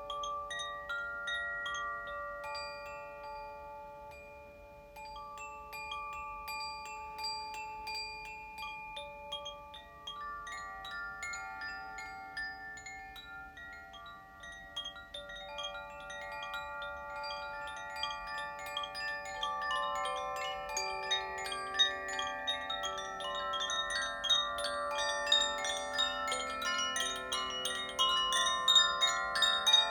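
Koshi chimes tuned to the water and earth elements, ringing as they are swayed. Many light, irregular strikes leave long, overlapping tones that build into a denser, louder shimmer over the second half.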